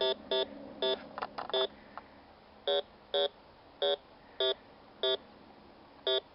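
Bounty Hunter 3300 metal detector sounding short repeated beeps, roughly one every half second with a pause about two seconds in, as the search coil is swept over a metal target lying at the surface. A few soft clicks sound about a second in.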